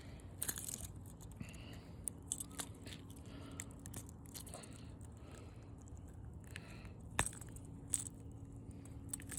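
Quiet handling sounds of a fish being unhooked from a double-hooked lure: scattered small clicks and crackles, with a sharper click about seven seconds in, over a faint steady hum.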